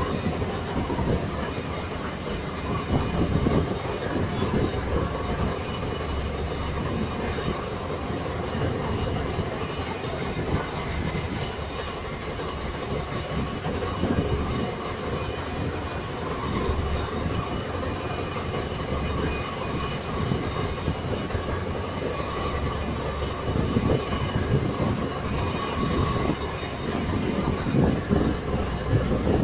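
Boat engine running steadily, with an uneven clattering rumble and faint steady tones above it.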